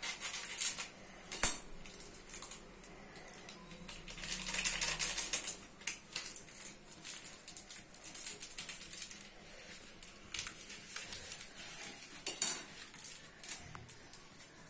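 Dry Maggi instant noodle cakes being crumbled by hand on a plate: irregular crackling snaps and light clicks, with a longer crinkling stretch about four to five seconds in and a sharp snap near the end.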